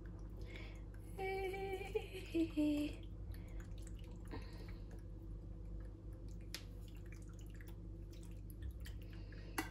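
Faint wet scooping as cooked pasta is spooned into a baking dish, with a few soft taps of the spoon. A woman hums a few notes about a second in, over a steady low hum.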